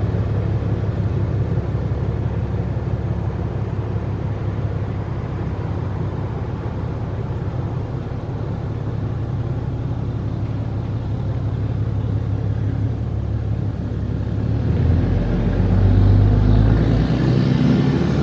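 Cummins inline-six turbo-diesel in a Ram pickup running steadily at idle after its oil change. About fifteen seconds in, the sound grows louder and deeper.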